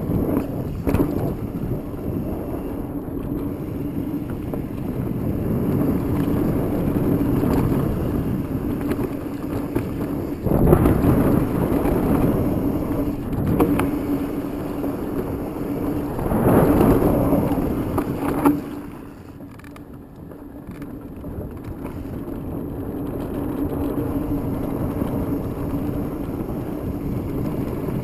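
Specialized Enduro 29er mountain bike ridden along dirt singletrack: a steady rush of wind and tyre-and-trail noise with the bike rattling over the ground and a few sharp knocks. It swells loud twice near the middle, drops off suddenly, then builds back up.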